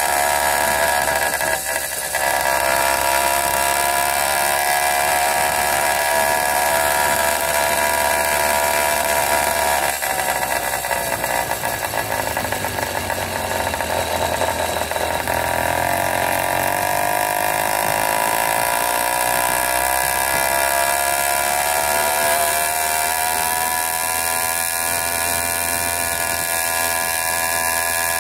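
80cc Wildcat PK80 two-stroke bicycle engine running under way. Its pitch sags from about ten seconds in as the revs drop, then climbs again after about sixteen seconds.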